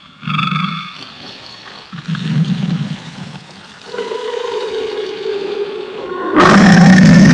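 Alligator roars: two short deep roars in the first three seconds, a steadier, higher drawn-out call from about four seconds in, and a louder deep roar starting near the end.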